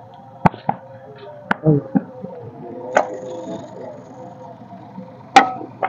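Handmade brick moulding: a sheet-metal brick mould and wet clay being worked by hand, giving several scattered sharp knocks, the loudest one near the end.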